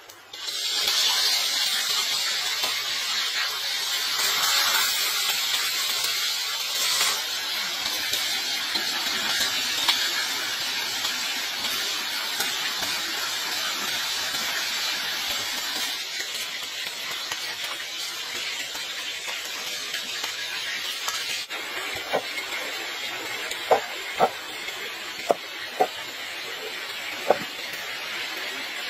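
Chicken pieces sizzling in hot oil in a wok, a steady loud hiss that starts abruptly about half a second in as the food goes into the oil. Near the end, several sharp knocks of a cleaver chopping on a wooden board.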